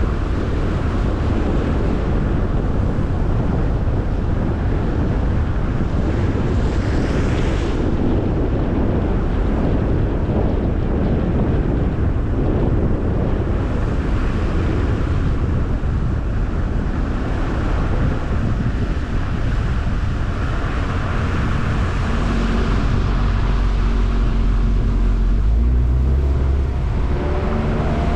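Car driving on a road: a steady rumble of tyre and wind noise, with wind buffeting the microphone. About 22 seconds in, a low engine hum comes up, and near the end a faint rising tone suggests the car picking up speed.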